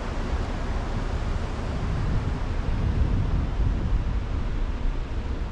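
Wind rumbling on the microphone of a boat under way, with water rushing along the hull: a steady noise, strongest and gustiest in the low end, with no distinct engine tone.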